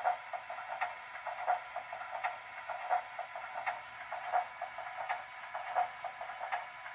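MTH O-gauge USRA switcher's onboard sound system playing its extended startup sequence: a steady rhythm of short mechanical strokes, about three every two seconds, from the standing steam locomotive.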